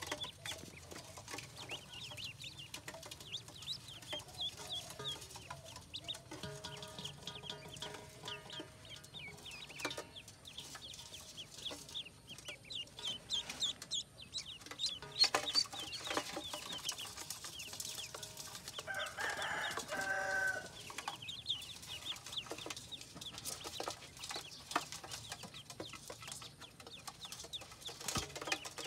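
A brood of ducklings peeping continuously: many short, high, downward-sliding peeps overlapping one another. Two longer, lower-pitched calls stand out, one about a quarter of the way through and a louder one about two-thirds of the way through.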